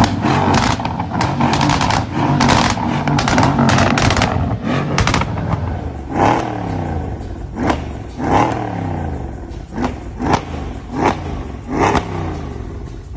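Straight-piped Mercedes-Benz CLS 63 AMG V8 exhaust, revved hard with a rapid string of crackles and pops. From about six seconds in it gives a series of sharp rev blips, each followed by the revs falling away.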